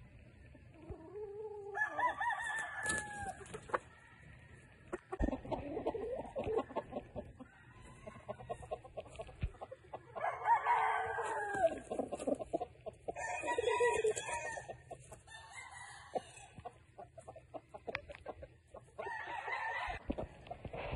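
Mitch-line gamefowl roosters crowing, about five crows a few seconds apart, each lasting a second or two.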